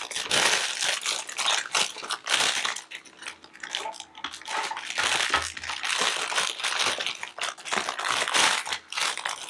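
Clear plastic bags crinkling and rustling in irregular bursts as they are handled and packed with small items.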